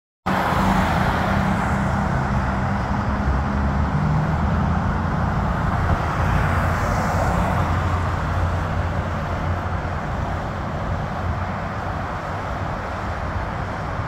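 Road traffic: cars passing, with steady engine rumble and tyre noise that eases off slightly toward the end.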